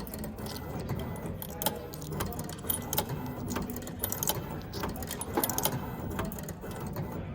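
Irregular sharp clinks and clatters, several a second at times, over a steady background murmur.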